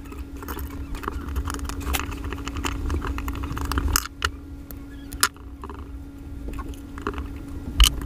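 Light clicks and knocks of a fan motor's metal housing and parts being handled and set on a workbench, a few sharper ones about four, five and eight seconds in, over a steady background hum.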